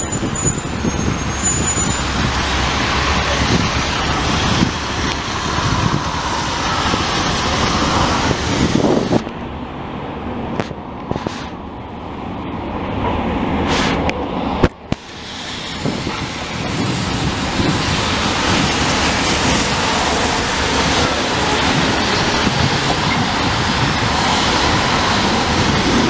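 Steady road traffic on a wet multi-lane boulevard: cars and city buses passing, their tyres hissing on the wet pavement. The traffic thins to a lull about a third of the way in, breaks off for an instant, then builds back to a steady flow.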